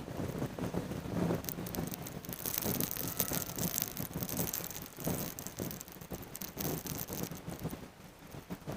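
Strong typhoon wind buffeting the microphone, sped up, heard as a rapid, irregular rattling noise.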